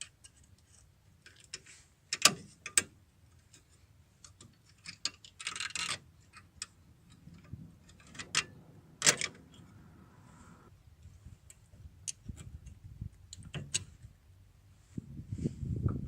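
Scattered metallic clicks and clinks of drum brake hardware, the shoe return springs, retaining parts and rods, being worked off by hand and with tools, with a short scrape partway through. A louder low rumble starts near the end.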